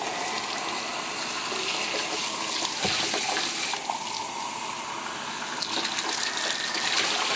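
Tap water running steadily into a sink, with a few small knocks.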